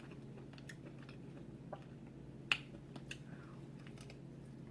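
Quiet mouth sounds of someone eating king crab meat: a few soft clicks, with one sharper click about two and a half seconds in.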